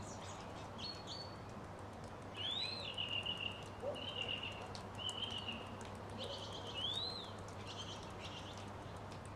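Birds singing: short high chirps, two clear whistles that rise and fall, about two seconds in and again near seven seconds, and short warbling phrases between them, over a faint steady hiss.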